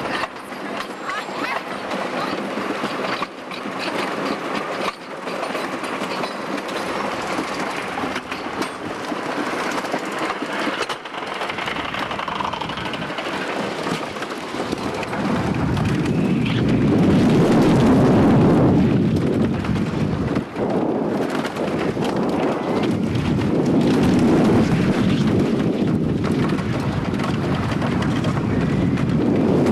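Screechin' Eagle wooden roller coaster train running along its wooden track, then a louder, deeper rumble starting about halfway through as it goes over the crest and down the drop.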